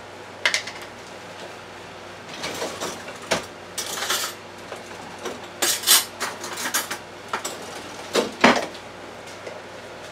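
A jar being opened and a spoon clinking and scraping in a jar of garlic paste: a run of scattered small clinks and knocks.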